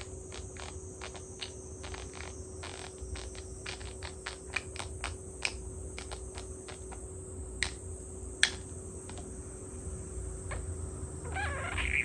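Budgerigar clicking and tapping its beak at a mirror, a quick run of sharp clicks about four a second that thins out to a few single louder clicks, then a short chirpy warble near the end.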